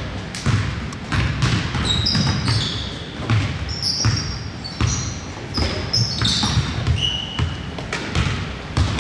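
A basketball being dribbled on a hardwood gym floor, its bounces coming every half second or so, with short, high sneaker squeaks on the floor in between.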